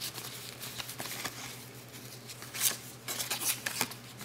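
Cardboard trading cards being slid one at a time off a hand-held stack, giving short papery flicks and scrapes over a low steady hum. The loudest flick comes a little past halfway through.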